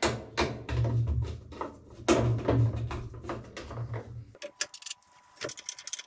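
Plastic knocks, clicks and rubbing as a washing machine's plastic control-panel cover is pushed on and slid into place, over a low rumble. About four seconds in the rumble cuts off suddenly, and lighter, sharper clicks of handling follow.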